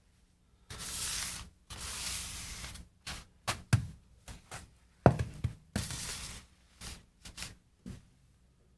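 Things being moved around on a wooden workbench: two stretches of scuffing and sliding, then a run of knocks and thumps as a foam block and a carpet pad are set down, the loudest thump about five seconds in.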